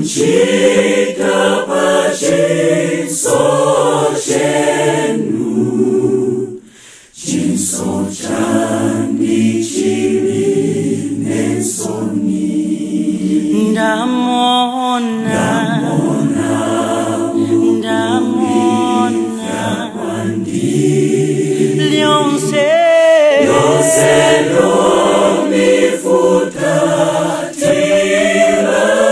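Choir singing a cappella in several voice parts, with a brief pause between phrases about seven seconds in.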